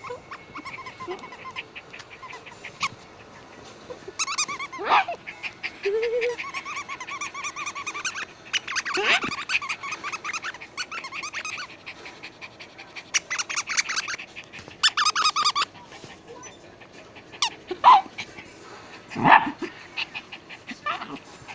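Small shaggy terrier making a string of short high-pitched whines and yips at close range. Several cries glide up and down in pitch, the loudest about five, nine and nineteen seconds in.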